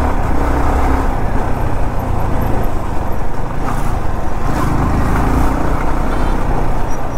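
Yamaha R15M motorcycle on the move: a steady rush of wind and road noise on the rider's mic, with the 155 cc single-cylinder engine running underneath.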